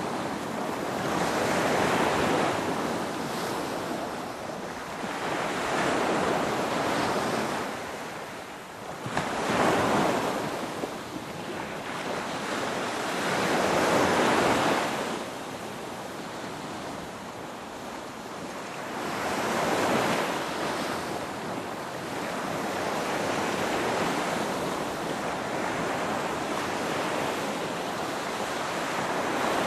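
Ocean surf: waves breaking and washing back, the rush swelling and falling away in slow surges every four to six seconds.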